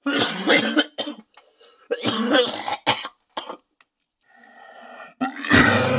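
A man coughing hard on inhaled smoke: two long coughing fits and a short cough. Music with a beat comes in loudly near the end.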